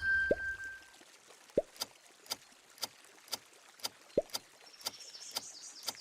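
A countdown timer's clock ticking about twice a second, with a few rising water-drop bloops among the ticks. At the start, a ding fades out.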